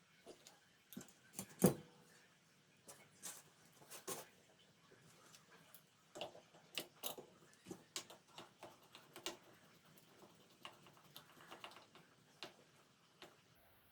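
Irregular light clicks and taps of small parts and tools being handled, with one louder knock nearly two seconds in.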